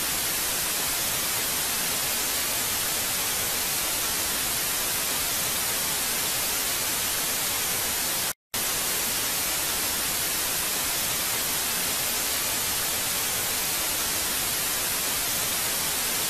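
TV static: a steady, even hiss of white noise, breaking off for an instant about eight seconds in before carrying on.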